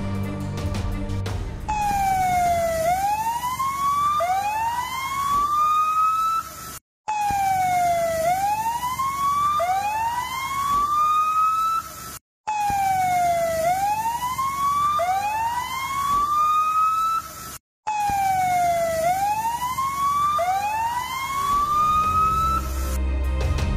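Emergency vehicle siren: a wail that sweeps down, then up twice, repeating four times with a brief cut to silence between repeats. Background music plays briefly at the start and again near the end.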